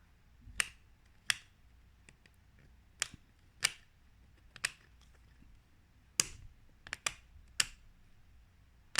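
Sharp plastic clicks from a luggage combination lock being reset to a new code, about ten of them at irregular spacing, several in quick succession near the end.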